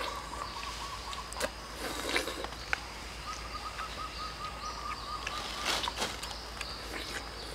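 People eating juicy watermelon: a few short wet bites and slurps. Under them, a bird trills steadily in the surrounding woods.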